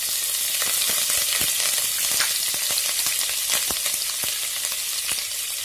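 Chopped green chillies sizzling in hot mustard oil, in a tadka with ajwain, cumin and curry leaves: a steady loud hiss with frequent small pops.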